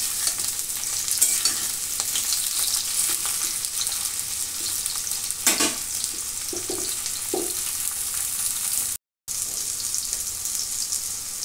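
Pointed gourd (parwal) pieces sizzling and crackling as they fry in hot oil in a stainless steel kadai, with a metal spatula scraping and stirring them now and then. The sound cuts out for a moment about nine seconds in.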